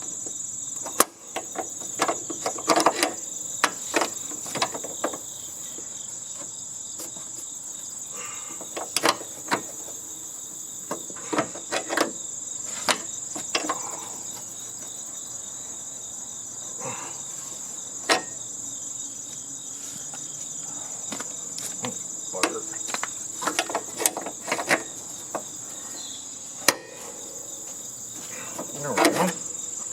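A steady high-pitched insect chorus, with scattered metallic clicks, clanks and knocks from hand tools working on a heating and air-conditioning unit being stripped for scrap.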